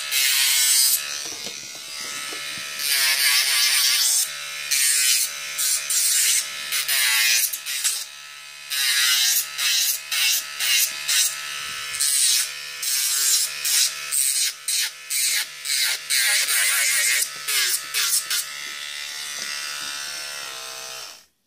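Vogue Professional 6600 electric nail drill running with a sanding band, its small motor humming steadily while the band grinds against an artificial nail tip in repeated short passes. The drill cuts off just before the end as it is switched off.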